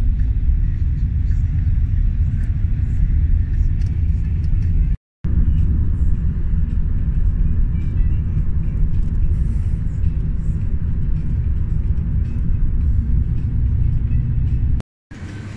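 Car cabin noise during a taxi ride: a steady low road-and-engine rumble, cut off by two brief silent gaps.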